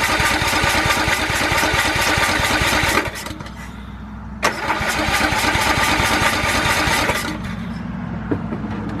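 Riding lawnmower's electric starter cranking the engine in two runs of about three seconds each with a short pause and a click between them; the engine turns over rhythmically but does not catch. After the second run a quieter steady hum remains.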